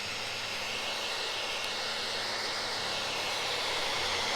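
Handheld electric hot-air blower running steadily, warming the adhesive backing of a foam traction mat to make it tackier.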